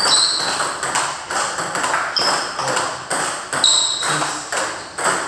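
Table tennis balls clicking off paddles and tables as several rallies run at once, several hits a second at an uneven rhythm, with a few short high squeaks.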